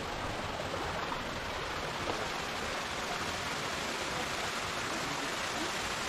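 A small waterfall's thin streams falling down a rock face into a pool, a steady rush of splashing water.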